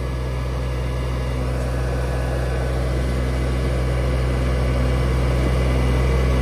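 A Solis compact tractor's diesel engine runs steadily, powering its rear backhoe's hydraulics as the bucket digs into soil. It grows slowly louder.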